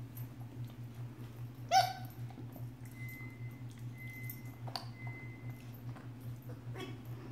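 A Maltese puppy lets out one short, high-pitched yip about two seconds in while tugging at a plush toy in play. The rest is quiet, with faint scuffling and a steady low hum.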